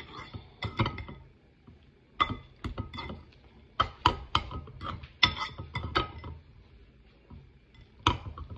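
Metal fork clinking and scraping against a glass bowl while stirring noodles: irregular bursts of sharp clinks with a short glassy ring, a lull about three-quarters through, then one more clink near the end.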